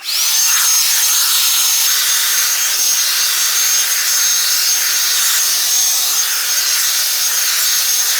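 Drybar Double Shot blow-dryer brush switched on: its motor whine rises quickly and then holds steady over a loud rush of air, with the brush rubbing through the hair.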